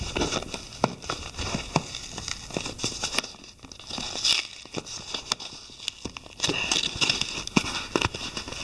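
A shipping package being opened by hand: packing material crinkling and tearing, with many scattered clicks and knocks from handling the box.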